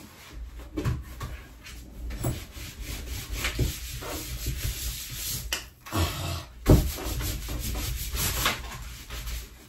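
A painted canvas being pressed and rubbed against a wooden door as it is fixed in place: a steady scraping with several knocks, the loudest about two-thirds of the way through.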